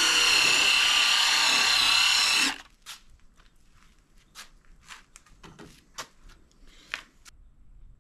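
Cordless impact driver spinning a foam polishing pad against a plastic headlight lens: a steady high motor whine that stops about two and a half seconds in, followed by faint scattered clicks and taps.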